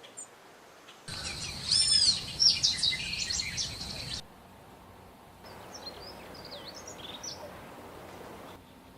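Small birds singing in two spliced stretches. About a second in comes a loud run of quick, varied chirps and whistled notes. Later there is a quieter run of short chirps.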